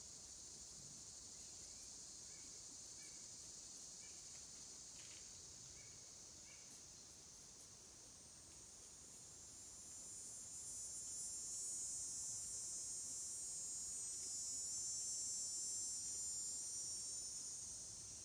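Insects droning in a high, steady chorus that swells louder about ten seconds in and fades near the end. A few faint chirps are heard during the first seven seconds.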